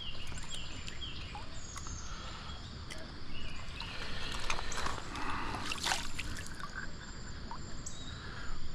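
Creek water running, with intermittent splashes and short knocks close to the microphone. The loudest splashes come about halfway through.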